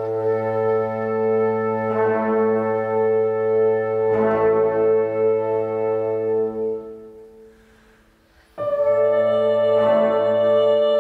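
Symphony orchestra playing a loud held chord that enters suddenly, lasts about seven seconds and fades away; after a short quiet gap a second held chord enters suddenly about eight and a half seconds in.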